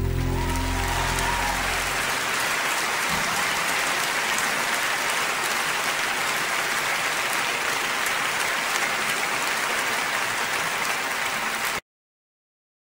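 A crowd applauding: a dense, steady clatter of many hands clapping. It starts over the tail of a guitar tune that fades out within the first two seconds, and it cuts off suddenly near the end.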